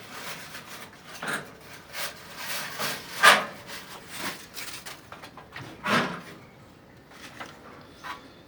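Irregular rubbing, scraping and knocks from hands working on a gas water heater. The loudest knock comes about three seconds in and another about six seconds in, then it goes quieter.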